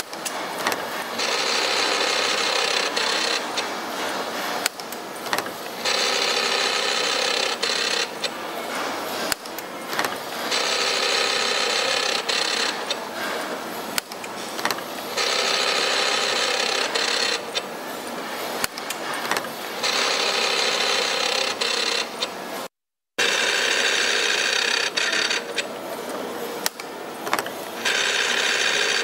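Simco CNC-620R spring-forming machine cycling: about every five seconds a whining stretch of a second or two, with clicks and rattles of the tool slides between. The sound cuts out for a moment about two-thirds of the way in.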